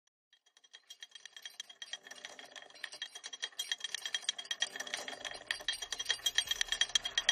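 Synthwave music fading in: a fast, rattling electronic pattern of ticks over held synth tones that grows steadily louder, with a low bass coming in about five seconds in.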